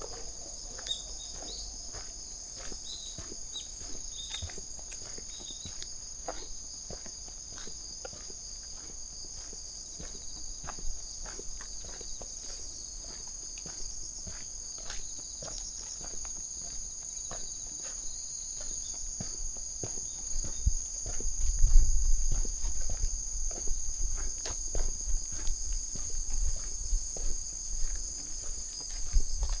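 A steady chorus of crickets and other singing insects at several high pitches, with light footsteps of someone walking. Low rumbling thumps join in during the last third.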